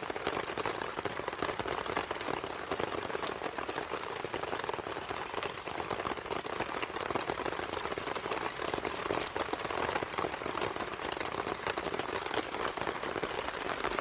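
Steady rain falling on a tarp and the wet ground around it: an even hiss of many small drops that keeps up without a break.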